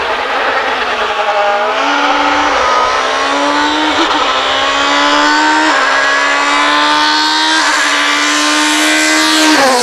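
Opel Vectra STW Super Touring car's 2-litre racing engine at full throttle. The revs sag at first, then climb through the gears, with four quick upshifts that each drop the pitch. The pitch falls sharply as the car passes close just before the end.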